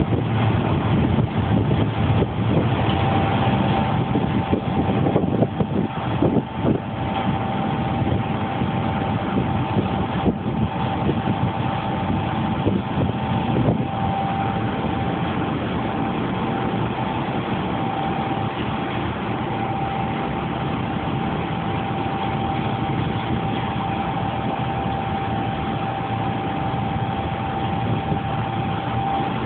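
Industrial blower fan running: a steady rush of air with a constant whine on top, and a few knocks about five to seven seconds in.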